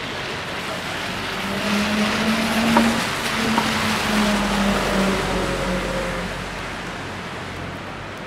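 A motor vehicle driving past on a wet city street: tyre hiss and engine hum build up and fade away, the hum dropping slightly in pitch as it goes by.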